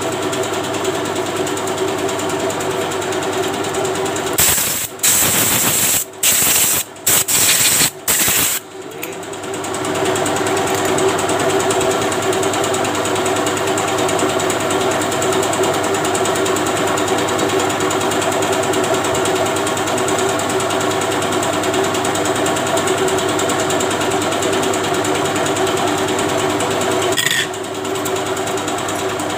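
Steady hum of a running motor. About four to nine seconds in, it is broken by several short, loud bursts of hissing noise.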